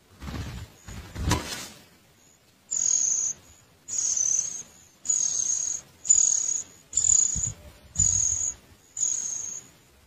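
Songbird nestlings begging while being fed at a ground nest: a run of seven short, high, hissing calls, about one a second. Before the calls, in the first two seconds, there is a burst of rustling.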